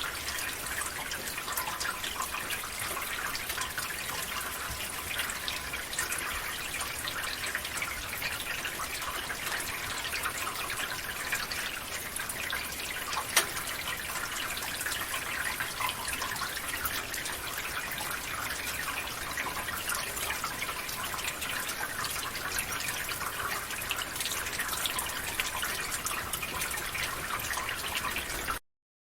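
Rainwater running and trickling through a gutter, a steady splashy flow with many small drips, one sharper drop about halfway through. It stops abruptly just before the end.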